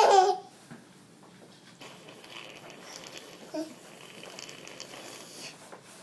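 A young child's short vocal burst falling in pitch at the very start, then a quiet room with faint rustling.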